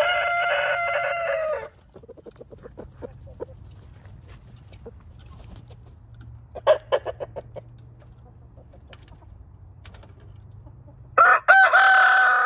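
Roosters crowing: one long crow that breaks off about a second and a half in, a few short clucks midway, then a Rhode Island Red rooster starting another long crow near the end.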